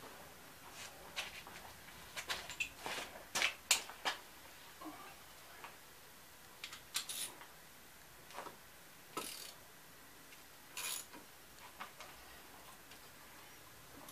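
Irregular metallic clicks and short taps from hand tools worked on a MerCruiser Bravo One outdrive's bell housing as it is being unbolted, bunched together a couple of seconds in and scattered after.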